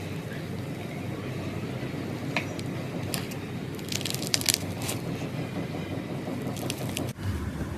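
Slime being squeezed and worked by hand, with scattered crackling pops and clicks, a cluster of them just past the middle, over steady low background noise. The sound briefly drops out near the end.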